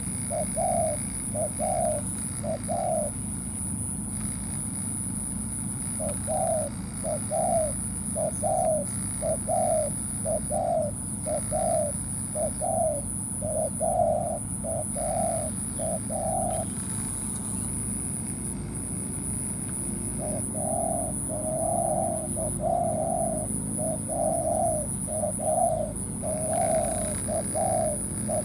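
Spotted doves cooing in long runs of short, evenly spaced notes, about two a second, breaking off twice for a few seconds.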